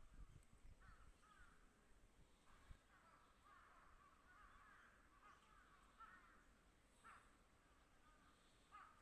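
Wild birds calling faintly, a continuous chatter of short calls repeating in clusters.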